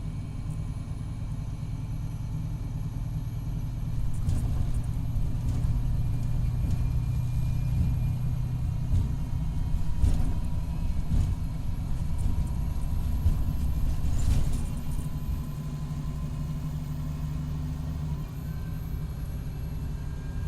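Diesel engine and transmission of a 2019 MCI D4500CT coach, a Cummins ISX12 with an Allison B500R automatic, running under way with a low rumble and a faint steady whine. It gets louder about four seconds in and eases back after about fifteen seconds. The uploader says the transmission is failing, in its last stages.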